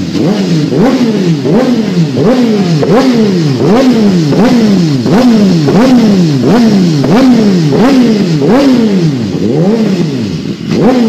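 BMW HP4 superbike's inline-four engine being revved in rapid repeated throttle blips, about one and a half to two a second. Each blip is a quick rise in pitch that falls back before the next.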